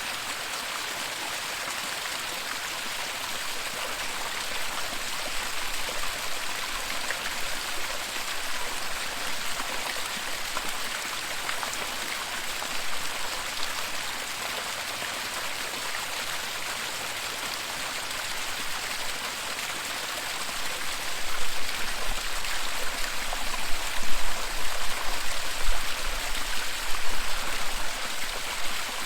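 Waterfall: a steady rush of falling water, with uneven low rumbles in the last third.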